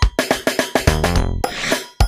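Music with a quick drum beat over held bass notes, the same phrase repeating about every two seconds.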